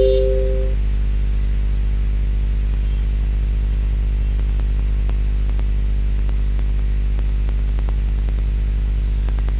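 Steady electrical hum and buzz on the recording microphone, with a two-note electronic tone fading out within the first second. A few faint clicks come in the middle.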